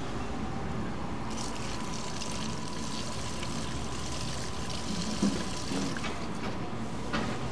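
Fuel being poured into an engine's fuel tank in a steady pour.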